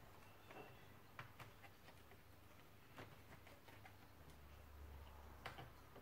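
Faint, scattered clicks and ticks of thin clear plastic being handled: a Pinlock anti-fog insert being flexed and worked onto the pins of a helmet visor. The loudest click comes near the end.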